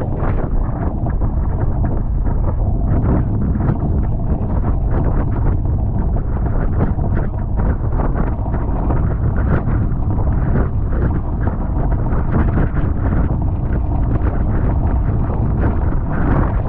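Heavy, steady wind noise on the microphone aboard a Tornado catamaran under sail, with frequent short splashes of water against the hulls.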